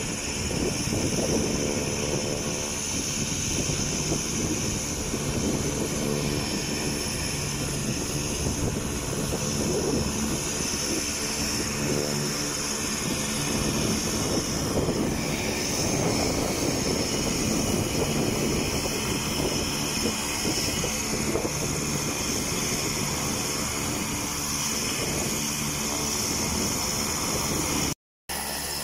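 Cessna 208B Grand Caravan's Pratt & Whitney PT6A turboprop running at taxi power: a steady high turbine whine over the propeller's drone, with its pitch shifting once about halfway through. Wind buffets the phone's microphone.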